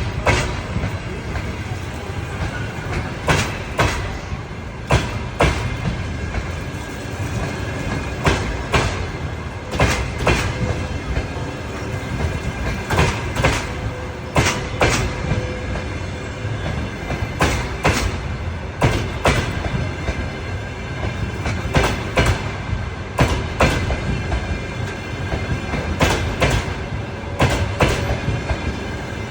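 Train wheels knocking over rail joints: sharp clicks, often in close pairs or groups, every second or two over a steady low rumble.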